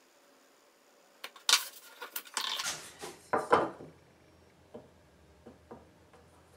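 A metal square being handled and laid on a laminate worktop: sharp metallic knocks and clatter, the loudest about a second and a half and three and a half seconds in, with a short scraping rustle between them, then a few light taps.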